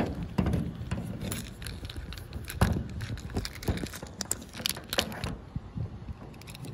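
Master Lock padlock and key being handled: a string of irregular metal clicks and knocks, the sharpest about two and a half seconds in.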